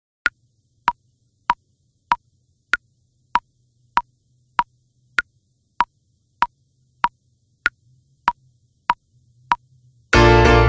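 Metronome-style clicks ticking steadily, about 1.6 a second, the first one higher in pitch. Music with brass comes in near the end.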